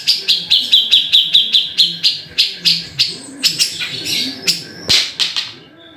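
Grey-cheeked bulbul (cucak jenggot) calling: a rapid run of short, high chirps, about seven a second at first, then slowing into more spaced-out notes that stop about five and a half seconds in.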